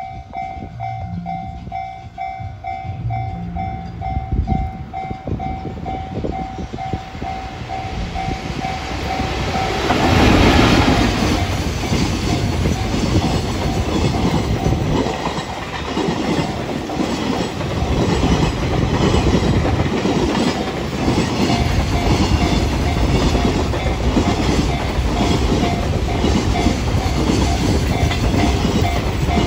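Japanese level-crossing alarm ringing its two-tone bell about twice a second as a freight train approaches. About ten seconds in the train reaches the crossing and the sound is at its loudest. The freight wagons then roll past with a steady clickety-clack of wheels over rail joints, the crossing bell still ringing under it.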